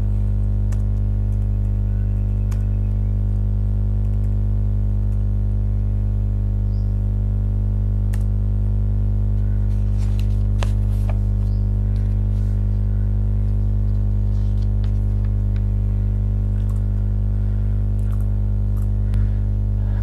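Steady, loud electrical hum with a stack of even overtones, joined by a few faint, scattered clicks of computer keyboard typing.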